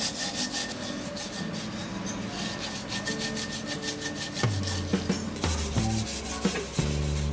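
A lemon piece dipped in salt is rubbed back and forth in quick strokes over a copper tumbler: a gritty scrubbing that cleans the black tarnish off the copper. Low background music notes come in about halfway through.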